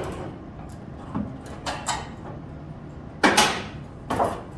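Several short metallic knocks and clunks as old sheet metal is worked loose and pulled from a car's body. The loudest two come about three and four seconds in.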